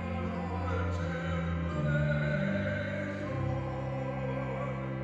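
A man singing a slow liturgical chant, moving between long held notes.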